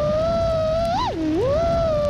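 FPV drone's brushless motors whining, the pitch following the throttle. It holds fairly steady, jumps up about a second in, dips sharply and then climbs back.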